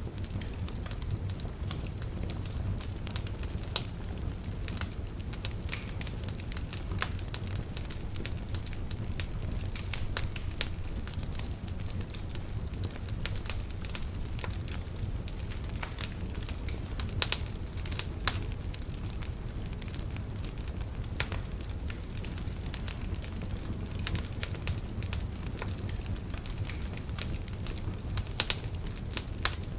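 Wood fire burning in a fireplace: a steady low rumble of flames with frequent irregular crackles and a few louder pops.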